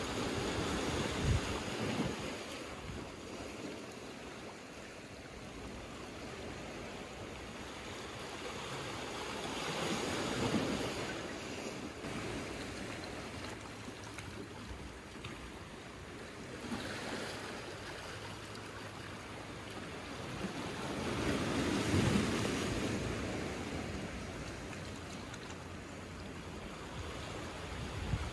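Small sea waves washing in over rocks and a pebble beach, the surf swelling and falling back about four times, loudest near the start and again about 10 and 22 seconds in.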